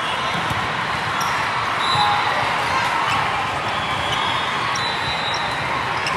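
Steady din of a large volleyball hall: volleyballs being hit and bouncing on many courts at once, with scattered thuds over a blur of crowd chatter and reverberation.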